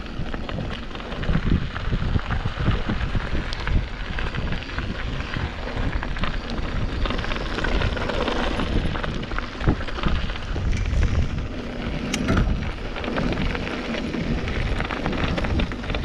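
Mountain bike descending a rocky dirt singletrack: tyres rolling and crunching over loose rock and gravel, with frequent rattles and knocks from the bike over bumps.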